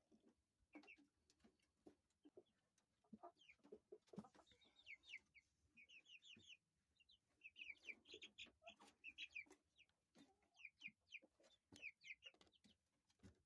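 Young chickens peeping faintly, in quick runs of short high chirps, with scattered soft knocks in between.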